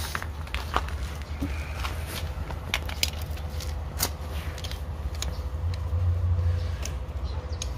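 Scattered metallic clicks and taps of a pedal spanner being fitted onto a folding bicycle pedal's spindle at the crank arm, the sharpest about four seconds in, over a steady low rumble.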